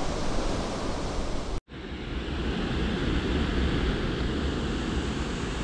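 Steady rush of a rocky mountain creek flowing through rapids. The sound drops out for an instant about a second and a half in, then the water noise carries on.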